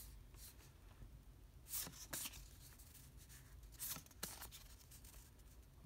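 Faint rustle and slide of stiff cardstock lobby cards being handled and swapped by hand: a few brief swishes about two seconds in and again about four seconds in, near silence between.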